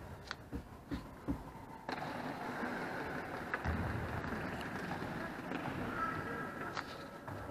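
Echoing sports-hall ambience: a few sharp knocks on the wooden court in the first second and a half, then a steady rushing noise from about two seconds in, with faint high squeaks near the end.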